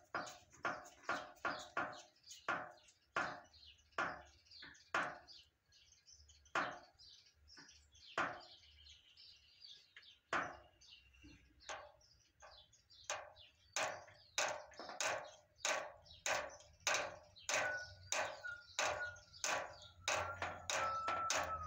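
Paper masking tape being torn off the roll in short strips and pressed onto cardboard: a run of short, sharp rips, two or three a second, coming faster in the second half.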